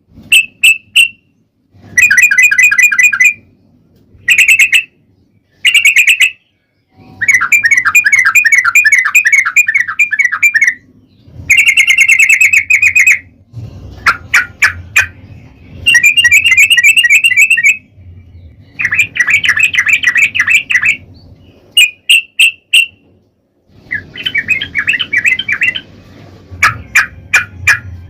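Song of a yellow-vented bulbul (trucukan), played as a lure to set other birds singing: loud bursts of rapid, bubbly chattering notes, each lasting one to three seconds, repeated with short pauses between.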